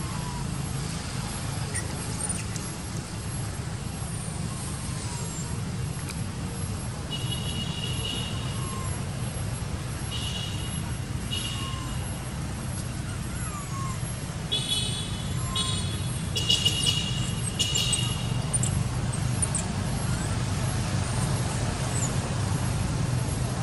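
Steady low mechanical rumble, with short shrill high-pitched calls coming in a few bursts about a third of the way in and again around the middle.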